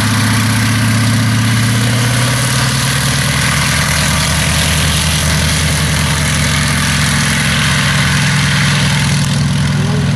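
Gloster Gauntlet biplane's Bristol Mercury nine-cylinder radial engine and propeller running steadily at low power while the aircraft taxis on the runway; the engine note shifts slightly about three seconds in.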